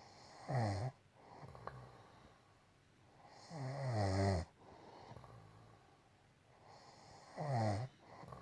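A woman snoring in her sleep: three loud snores about three and a half seconds apart, the middle one the longest, with softer breathing in between.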